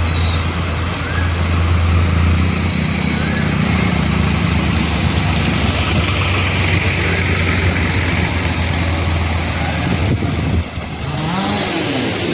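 A motor vehicle engine running steadily with a low hum, over a constant hiss of street noise; the hum cuts off abruptly near the end.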